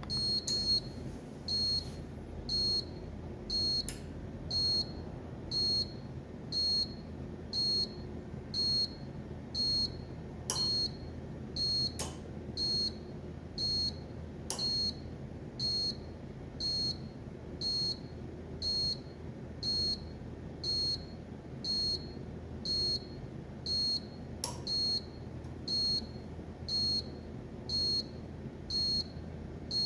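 Electronic beeper of a truck refrigeration unit's temperature controller, giving a short high beep about once a second over a steady low hum. A few sharp clicks come in between the beeps.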